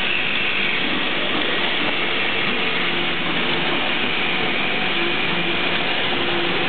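Small conveyor line running: a steady mechanical hum and hiss with a faint tone coming and going.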